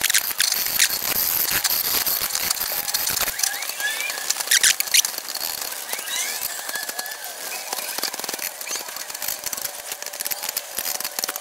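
Small hand blade scraping and chipping hardened Gorilla Glue squeeze-out off the cracks of a glazed terracotta pot: a run of rapid scratchy strokes, with a few short squeaks from the blade.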